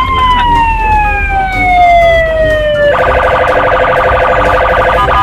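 Electronic siren on a police patrol car: one long tone that sweeps up, then slowly falls for about three seconds, then switches to a rapid warble. A low traffic rumble runs underneath.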